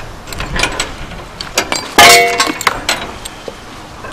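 Metal clinks and knocks as a ratchet tie-down strap holding an engine on a trailer is worked loose, with one loud metallic clang about two seconds in that rings on briefly.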